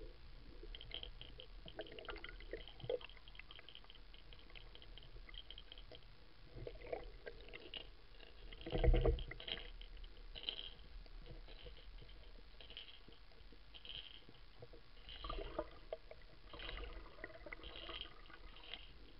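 Muffled underwater water noise with faint scattered ticks and clicks, heard through an underwater camera, and one louder thump about nine seconds in.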